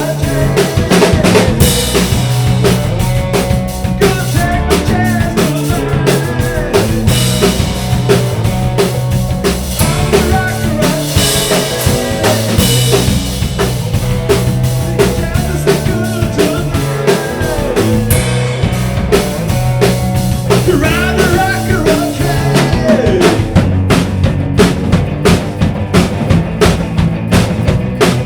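Loud rock music without singing, driven by a drum kit: bass drum, snare and rimshots keep a steady beat under the band.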